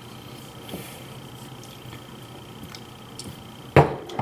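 Faint steady hum in a small room, then a sharp knock about four seconds in, like an object set down hard on a kitchen counter, followed by a smaller knock.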